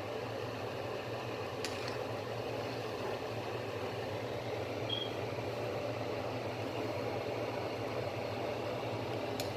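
Steady hum of a small motor running, with a faint click about a second and a half in and another near the end.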